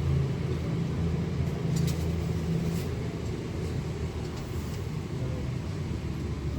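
Class 222 Meridian diesel multiple unit's engines running with a steady low drone. Its pitched hum around the lower notes fades out about three seconds in.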